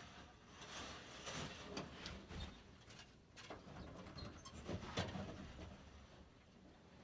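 Faint rustling, scraping and light knocks in a fireplace flue with a trapped bird inside, while the flue is being opened to free it.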